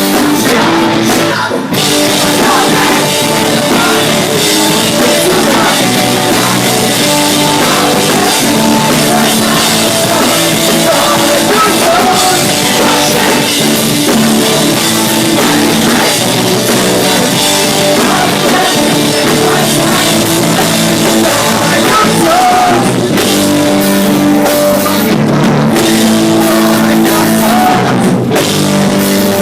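Pop-punk rock band playing live: electric guitars, drum kit and singing, loud and continuous.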